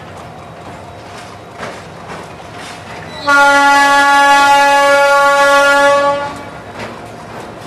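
Diesel locomotive horn sounding one long steady blast of about three seconds, starting abruptly a little after three seconds in and cutting off. It sounds over the low steady rumble of idling locomotive engines.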